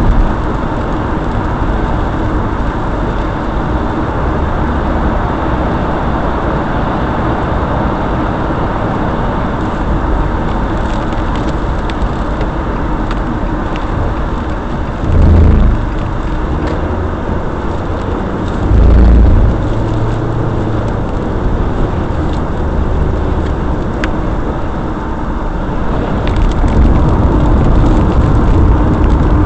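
Steady road and engine noise of a car driving on a freeway, heard from inside the cabin. About halfway through come two brief, louder low rumbles a few seconds apart.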